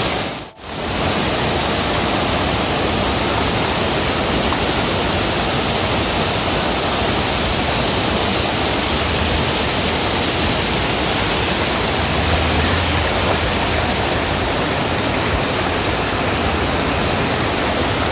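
Stream water rushing over rocks, a steady full hiss. It cuts out for an instant about half a second in.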